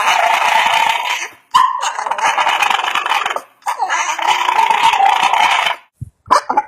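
A dog howling in three long, rough, drawn-out calls of about two seconds each, the dog's attempt at singing along.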